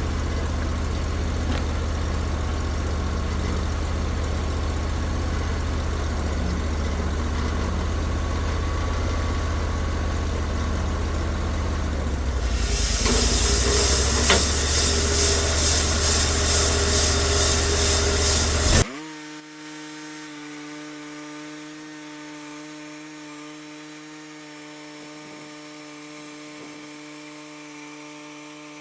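Cook's sawmill's engine running steadily with a deep hum. About twelve seconds in, a loud hiss joins it for some six seconds, then the sound cuts off abruptly and a quieter, steady pitched hum carries on.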